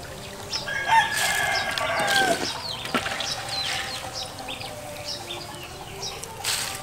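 A rooster crows once, a single call of about a second and a half that drops in pitch at its end, with small birds chirping around it.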